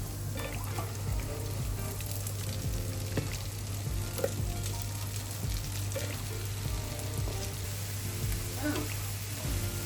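Sliced leeks and garlic frying in a pan, sizzling steadily, with occasional light clicks.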